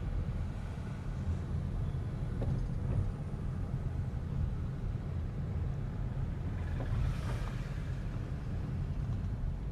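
Car on the move: a steady low rumble of engine and road noise, with a brief rushing swell about seven seconds in.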